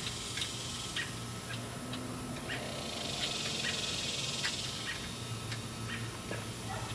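Light, irregular metallic clicks of a bicycle drive chain and its split master link pieces being handled and fitted, over a steady low hum.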